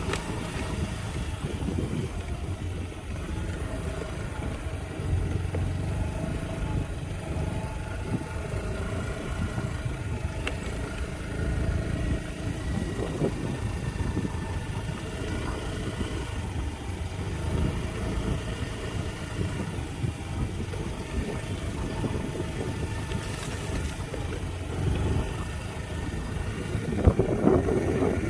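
Small motor scooter's engine running steadily as it is ridden along a dirt road, a low rumble with a faint steady whine, getting louder near the end.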